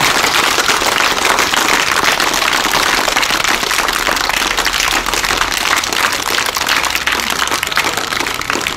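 A crowd of schoolchildren clapping together, a dense, steady round of applause.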